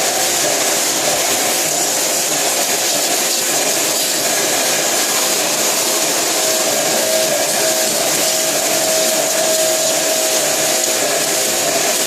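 Air-conditioner cleaning equipment running steadily: an even motor whir with a strong hiss, and a humming tone that grows plainer about halfway through.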